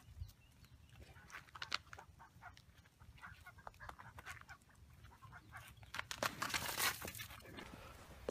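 Farmyard poultry, chickens and ducks, clucking and quacking, mixed with scattered short clicks and taps, and a louder rough noise about six seconds in.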